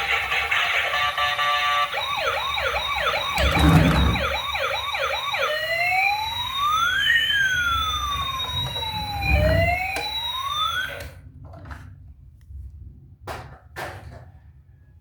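Electronic siren: a fast yelping warble for a few seconds, then a slow rising-and-falling wail that cuts off suddenly. A few light clicks follow near the end.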